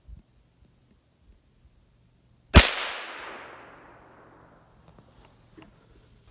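A single rifle shot about two and a half seconds in, its echo fading away through the woods over about a second and a half.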